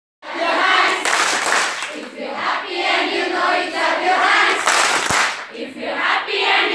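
A large group of young women chanting together in unison, loud and rhythmic.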